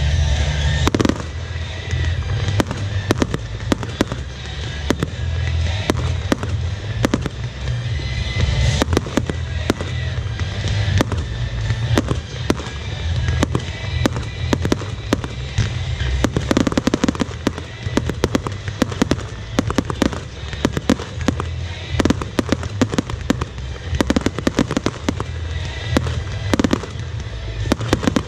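Fireworks display: aerial shells and comets going off in rapid, irregular bangs and crackles, often several a second, over background music.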